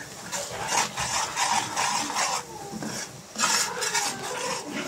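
A metal ladle stirring and scraping thick curry spice paste around the bottom and sides of a metal cooking pot, in repeated rasping strokes with a short pause about three seconds in. The spices are being fried in oil until the oil separates.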